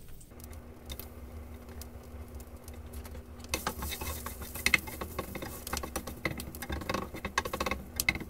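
Grated garlic sizzling as it browns in hot oil in a skillet. From about halfway through, a slotted spatula stirs it around the pan with quick clicks and scrapes.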